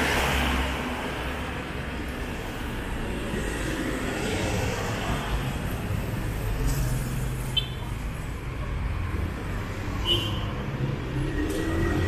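City street traffic: cars and other motor vehicles passing with a steady low engine hum, and two brief high chirps in the second half.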